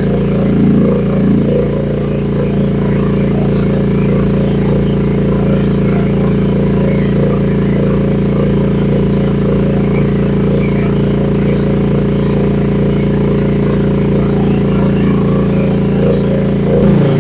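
Rippa R10 mini excavator's gasoline engine running at a steady speed.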